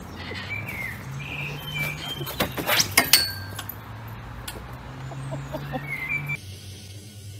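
Metal garden swing seat clanking and knocking in a quick cluster about two and a half seconds in, as a husky tumbles off it onto the grass. Birds chirp now and then.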